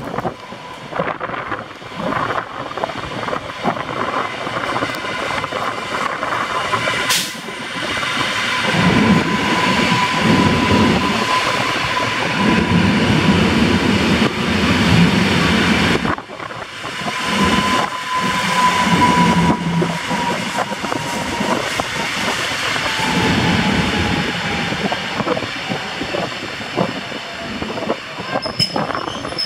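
Koleje Mazowieckie EN57-type electric multiple unit running in along the platform and slowing, its wheels clattering over the rails with a rumble. A whine sets in about a quarter of the way through and slowly drops in pitch as the train slows.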